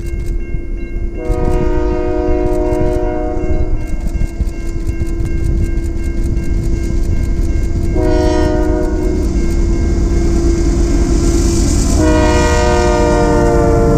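Freight train led by two Union Pacific diesel locomotives sounding its multi-note air horn for a grade crossing. There is a long blast about a second in, a shorter one near the middle, and a last one that drops in pitch as the lead locomotive passes close by. Under the horn the locomotives' engines rumble steadily and grow louder as the train approaches.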